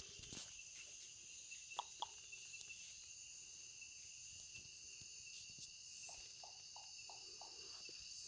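Faint, steady chorus of rainforest insects, several high shrill tones layered together. Two short calls come about two seconds in, and a run of about six short notes, roughly four a second, comes late on.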